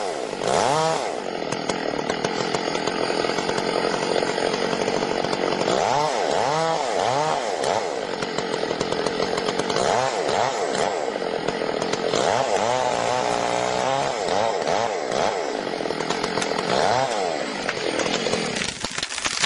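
Two-stroke chainsaw running, its engine revving up and falling back several times.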